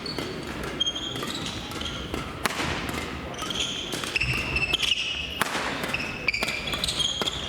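Badminton play in a large gymnasium: sharp racket strikes on the shuttlecock and many short, high squeaks of court shoes on the floor, ringing in the hall.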